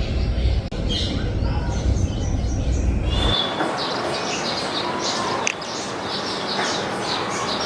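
Several birds chirping and calling with many short, high, overlapping notes that grow busier after about three seconds. A low rumble underneath stops abruptly about three seconds in.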